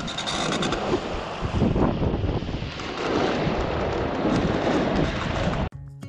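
Water rushing and splashing along the hull of a 40 ft Wauquiez sailboat under way, with wind buffeting the microphone. It cuts off abruptly near the end and plucked-string music takes over.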